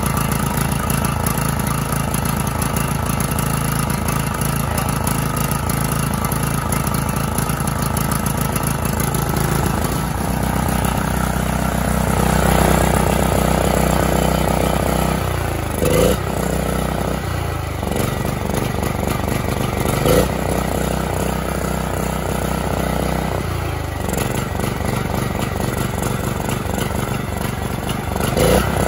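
Briggs & Stratton Vanguard engine of a Coleman Powermate Pro Gen 5000 generator running steadily with its air filter off, on its first sustained run after the carburettor was cleaned. Its note shifts a little about a third of the way in, and it dips and picks back up briefly three times in the second half.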